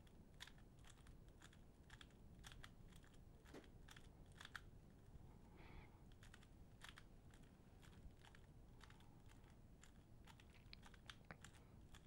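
Faint, irregular clicks of a stickerless 3x3 speedcube's plastic layers being turned quickly by hand, many turns in short runs.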